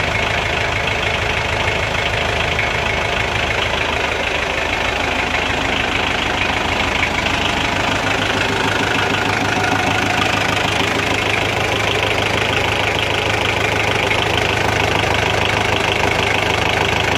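Kubota L3001 tractor's diesel engine idling steadily.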